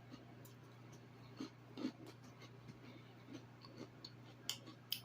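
Quiet room tone with a steady low hum and a few faint, short clicks and small handling or mouth sounds scattered through it.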